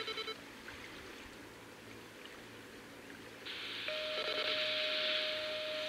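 Scanner radio: a short electronic beep right at the start, then a quiet gap. About three and a half seconds in, the channel opens with hiss, and from about four seconds a steady single-pitched tone sounds.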